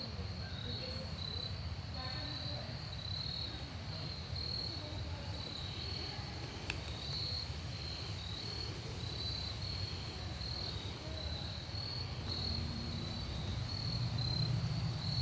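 Crickets chirping, a high, evenly pulsing trill that keeps going throughout, over a low steady rumble.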